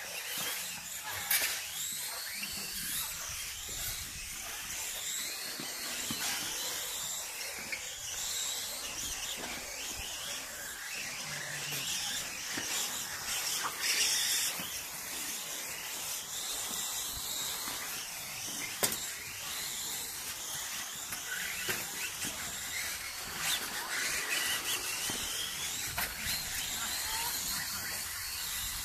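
Several 1:10 electric RC rally cars running, their motors whining up and down in pitch as they accelerate and slow, over a steady hiss, with a few sharp knocks.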